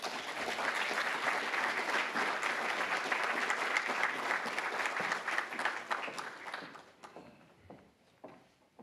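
Audience applauding, many hands clapping steadily, then dying away about seven seconds in.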